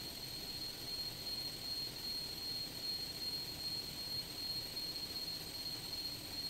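Steady machinery drone with a constant high-pitched whine, the running background of a ship's engine room.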